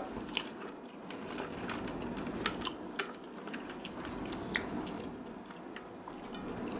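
Close-miked eating: a person chewing squid roe pekasam with rice, with many small, sharp mouth clicks at uneven intervals.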